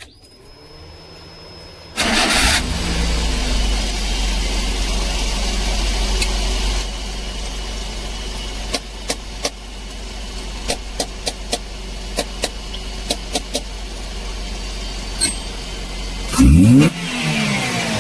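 Daihatsu van engine, its electronic throttle body freshly cleaned to cure a surging idle, cranks and starts about two seconds in. It runs at a raised idle that settles lower a few seconds later, with scattered sharp ticks, and is revved briefly near the end.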